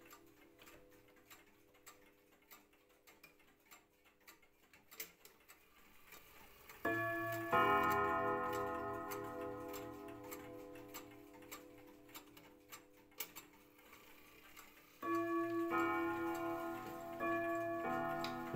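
1930s Gustav Becker pendulum wall clock ticking steadily, then its Trio-Gong is struck: a first strike about seven seconds in with a second following half a second later, ringing several tones at once and fading slowly, and another strike about fifteen seconds in.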